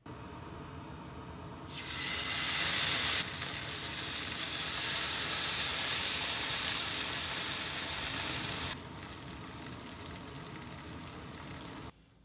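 Food frying in a hot pan, sizzling steadily. The sizzle gets much louder about two seconds in, eases back near the end, then stops abruptly.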